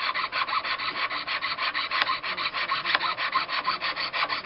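Jeweler's saw blade cutting through a sterling silver casting sprue against a wooden bench pin, in quick, even back-and-forth strokes: the last sprue being sawn off to free a cast ring from its base.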